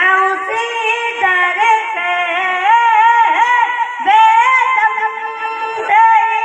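A young boy singing a naat solo into a microphone, holding long notes that bend and glide up and down.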